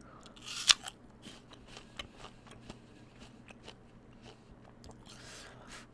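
A bite into a raw Golden Delicious apple: one loud crunch under a second in, then quiet chewing with faint crackly clicks.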